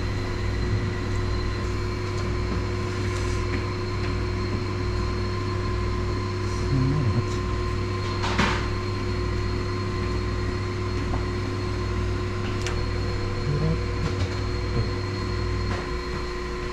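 Steady machine hum with a low throb pulsing about twice a second and several faint steady whining tones; the low hum cuts off near the end. A brief sharp rustle or click about eight seconds in.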